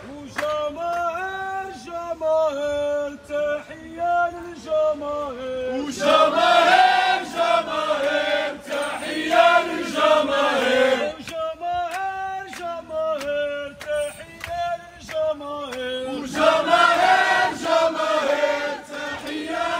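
A crowd of protesters chanting slogans together in a sing-song rhythm, in repeated phrases.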